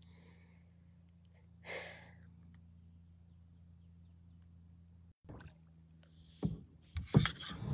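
Faint steady hum of a phone microphone, with a brief soft rush about two seconds in. Near the end come a few sharp knocks and rubbing as the phone is handled and moved.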